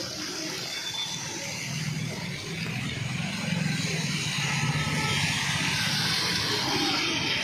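Street traffic on a rain-wet road: a vehicle engine hums through the middle, over a steady hiss of tyres on water and falling rain that grows stronger about halfway through.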